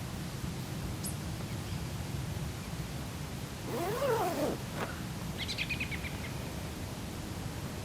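An animal's cry: one wail that rises and then falls in pitch about four seconds in, followed a second later by a short, quick run of high chirps, over a steady low rumble.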